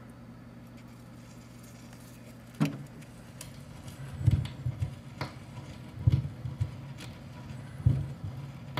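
Record player with a low steady hum, then the stylus set down onto a flexi-disc sound sheet with a sharp click about two and a half seconds in. After that the spinning disc gives regular thumps and ticks, just under one a second, in the groove before the music starts.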